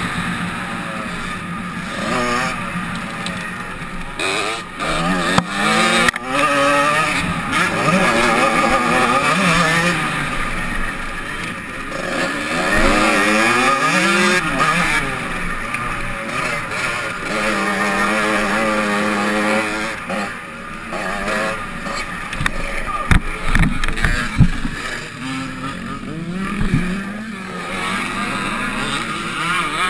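Motocross bike engine heard from an on-board camera, revving hard and dropping off again and again as it accelerates and shifts around the track, with rough wind noise on the microphone. Several sharp knocks come a little over two-thirds of the way through.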